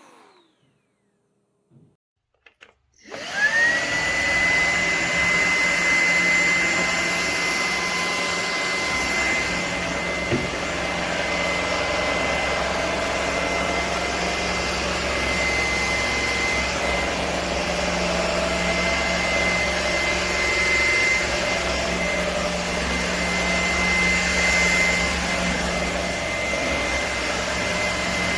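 Shark Stratos cordless stick vacuum switched on after a few seconds of near silence: its motor spins up with a quick rising whine that settles into a steady high tone, then runs steadily.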